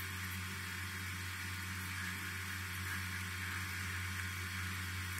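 Steady low electrical hum with an even background hiss: room tone.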